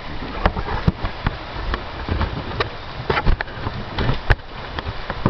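Steady rain falling, with irregular sharp drip taps of water landing close by.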